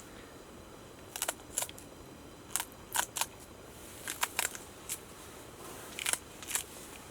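A dozen or so light, sharp clicks at irregular intervals, several in quick pairs or threes, from small hard objects being handled, over a steady low hiss.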